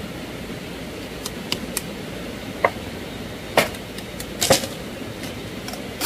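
A few sharp knocks and clicks at uneven intervals over a steady background hiss, the loudest about three and a half and four and a half seconds in.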